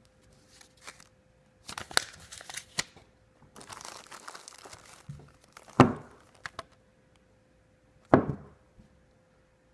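Clear plastic packaging crinkling and rustling as it is handled, with a steadier stretch of crinkling about three and a half seconds in. Two sharp knocks, about six and eight seconds in, are the loudest sounds.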